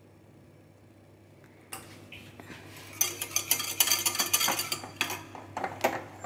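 Metal spoons scraping and clinking against each other, a ceramic cup and a steel bowl as thick whipped coffee paste is scraped off into the cup: a quick run of clinks about three seconds in and one last clink near the end.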